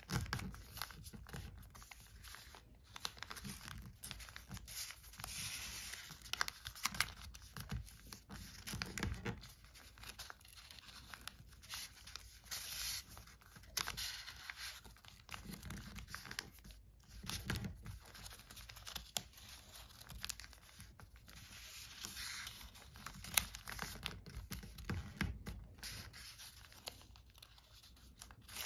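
Sheets of origami paper rustling and crinkling as fingers fold, press and tuck the points of a modular paper star, with irregular small crackles and taps.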